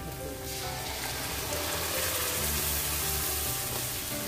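Wet ground masala paste poured into hot oil and frying onions in a pan, sizzling: the hiss builds about half a second in and then holds steady.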